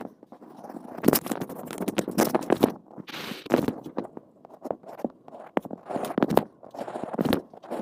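Scratchy drawing strokes on a cup: a drawing tool rubbing and tapping against the cup's surface in short, irregular bursts with sharp clicks between them.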